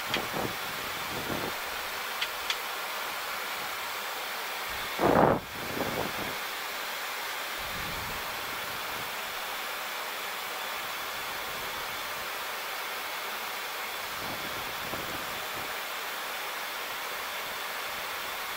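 Steady rushing airflow noise inside a Boeing 737 cockpit on final approach, with gear down and flaps at 40. A brief louder sound cuts through about five seconds in, and a few faint clicks come in the first seconds.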